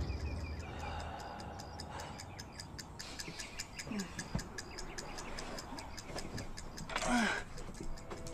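Clock ticking quickly and evenly, faint, with a brief swishing rustle about seven seconds in.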